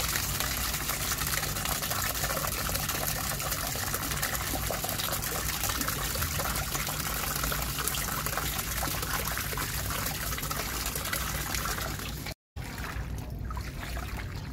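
Water running in a steady, splashing stream for about twelve seconds, then cutting off abruptly; after it a quieter, more uneven water sound.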